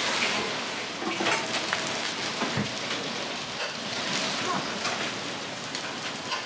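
Food frying in a hot wok: a steady sizzling hiss, broken by a few short clicks and a knock about two and a half seconds in, as the wok is worked.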